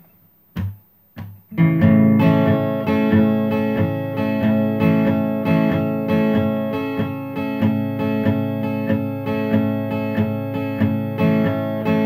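Acoustic guitar strummed in a steady rhythm, starting about a second and a half in after two soft knocks.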